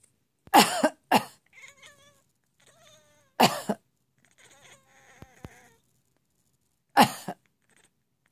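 An elderly woman coughing hard in short fits: two coughs together near the start, one about three seconds in and one near the end. Between the coughs a pet animal makes quieter wavering calls.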